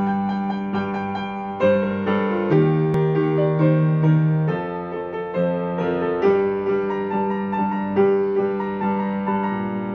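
Piano music: chords played over low notes that change every second or two.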